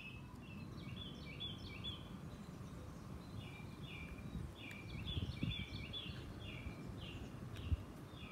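A songbird singing, repeating short phrases of quick high notes, over a steady low background rumble. One soft knock near the end.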